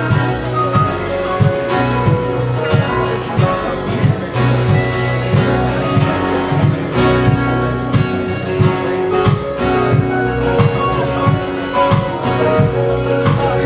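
Instrumental gospel music, guitar to the fore over a bass line and a steady beat.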